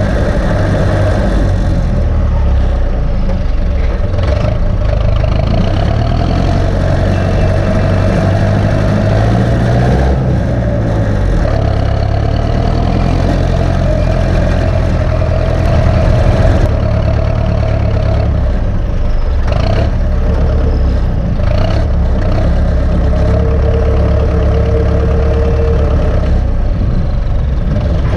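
Turbocharged Ursus C-360 tractor's four-cylinder diesel engine running steadily under load while pulling field rollers.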